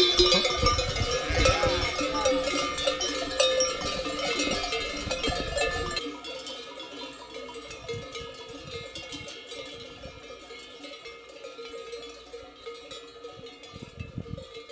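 Many sheep bells clanking and ringing together as a large flock of sheep moves past close by, with low thumps and rumble underneath. About six seconds in the low sounds drop away and the bells carry on fainter, further off.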